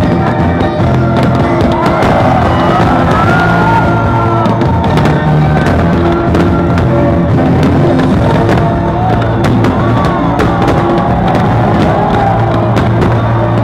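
Loud music from the fireworks show's soundtrack plays steadily, with firework pops and crackles scattered through it.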